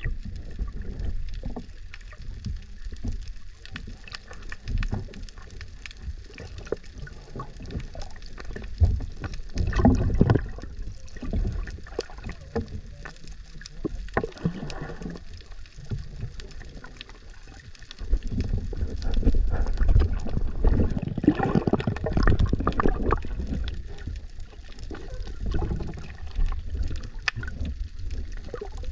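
Muffled sloshing and gurgling water heard through an underwater camera, with irregular knocks and splashes from a swimmer kicking in fins at the surface. It grows louder about two-thirds of the way through.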